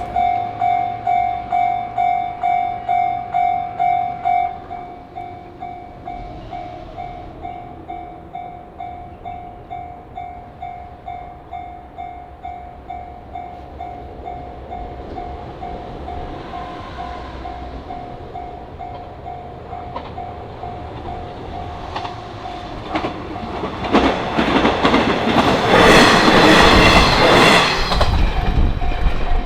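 Japanese level-crossing alarm ringing its electronic bell tone about twice a second, loud for the first few seconds and then quieter. In the last several seconds a diesel train on the JR Hachiko Line approaches and passes over the crossing. Its rumble swells and is loudest near the end, partly covering the bell.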